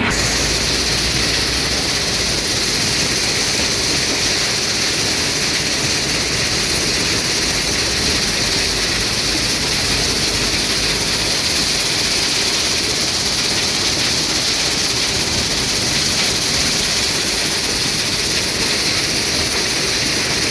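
Rock-crushing machinery running steadily, giving a loud continuous grinding noise with a strong hiss and no distinct separate impacts.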